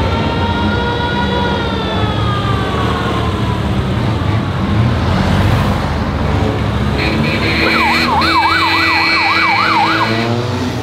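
Siren of a vintage Škoda 1203 ambulance: a held tone that slides down in pitch as the van passes, then, near the end, a fast rising-and-falling yelp of about three or four sweeps a second, over engine and traffic rumble.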